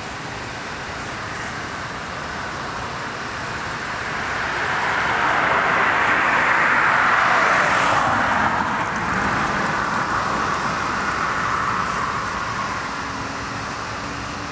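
A vehicle passing on a road, its tyre and engine noise swelling from about four seconds in, loudest around seven seconds, then fading away, over steady background traffic noise.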